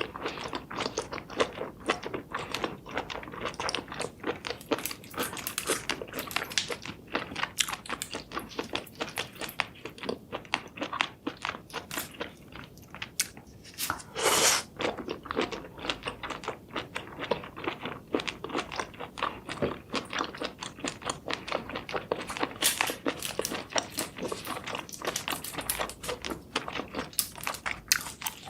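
Close-miked eating sounds: a person chewing and biting cooked seafood, with wet, crunchy clicks coming thick and irregular. A brief louder noise comes about halfway through.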